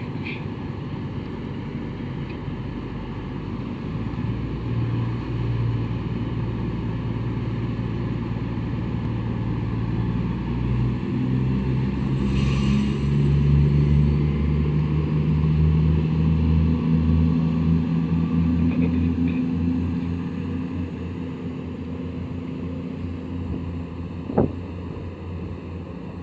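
Class 220 Voyager diesel multiple unit's underfloor diesel engines revving up, their note rising steadily as the train pulls away from the station, then easing off. A single sharp knock comes near the end.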